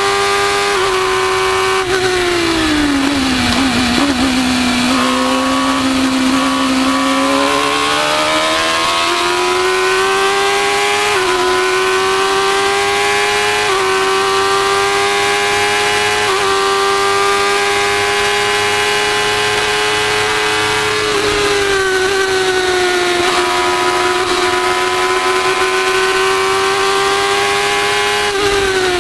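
Formula 1000 race car's 1000cc motorcycle engine at racing revs, heard onboard. The engine note falls as the car slows and downshifts about three seconds in, climbs back up with quick upshift dips around eleven, fourteen and sixteen seconds, and drops again around twenty-one seconds before holding high.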